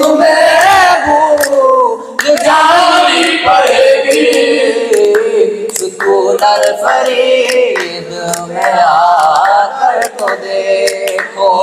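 Young male voices singing a comic qawwali in chorus, with long held, wavering notes, and handclaps keeping time.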